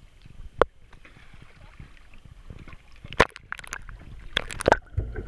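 Water washing along the side of a fishing boat. A single sharp knock comes about half a second in, and a cluster of knocks and splashes follows in the second half.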